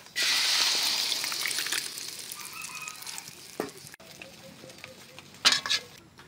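Sizzling as a beaten-egg and red-chili mixture hits hot oil in a wok: it starts suddenly and loud, then dies down over a few seconds. There is a short burst of noise near the end.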